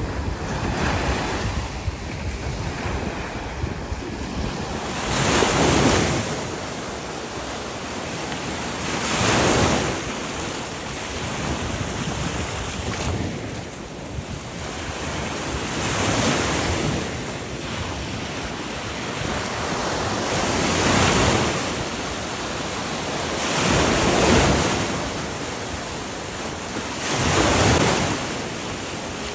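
Sea surf breaking on a shallow beach, each wave swelling into a loud rush every three to five seconds, with wind buffeting the microphone.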